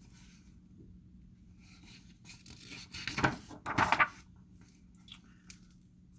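Quiet room tone with a faint steady low hum, broken about three seconds in by a few brief rustling and voice-like sounds lasting around a second.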